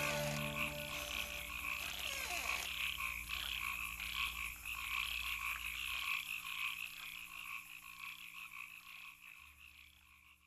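Mountain bike's freewheel hub buzzing as the bike coasts down the trail, a fast ratchet clicking that fades away towards the end.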